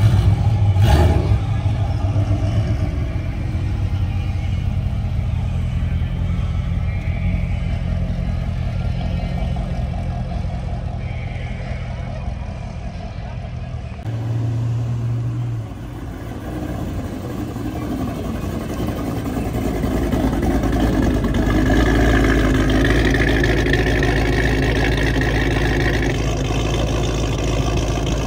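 Car engines running as cars pull away: first a steady low idling rumble with a sharp click about a second in, then, after an abrupt change about halfway, an engine that grows louder and revs up toward the end.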